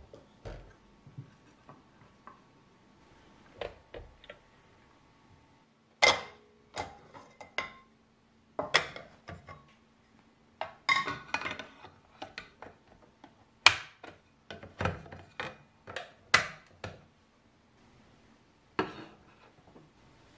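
Detachable non-stick plates of a SOLEMOOD hot sandwich maker being unclipped, lifted out and set down: an irregular string of sharp clicks and clacks of the plates against the appliance body and countertop, quieter at first and busiest in the middle.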